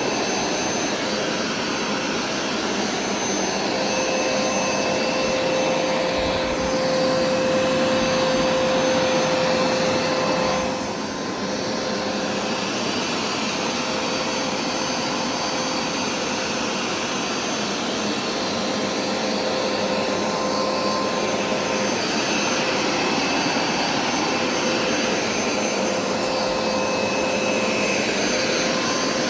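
Hoover SmartWash carpet cleaner running steadily, its motor a continuous whine with a few steady tones in it, dipping briefly about eleven seconds in.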